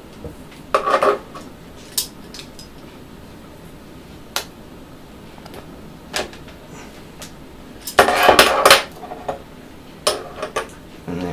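Brass fittings and pliers clinking and clattering as they are handled: scattered single metallic clicks, with two short bursts of clatter, about a second in and again later on.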